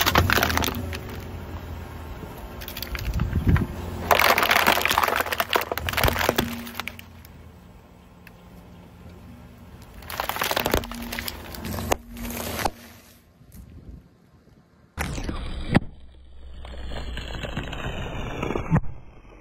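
A car tyre rolling over and crushing a series of objects: an aluminium drink can, a plastic bag of small wrapped candies and a bag of crisps, giving several separate bursts of crunching, crackling and crinkling packaging.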